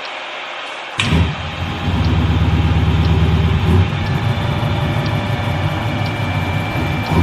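Car engine in a mechanic's workshop starting abruptly about a second in and then running steadily at idle, over a background hiss, with a faint tick about once a second.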